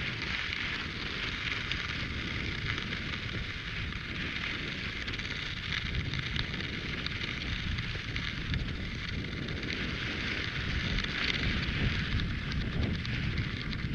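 Cross-country skis sliding and scraping along snow tracks, a steady hiss throughout, with wind rumbling on the microphone.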